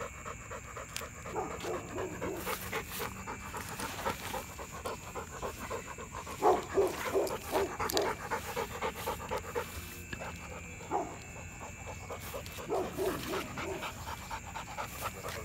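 XL pit bull panting with its tongue out, quick and rhythmic throughout, louder for a stretch in the middle.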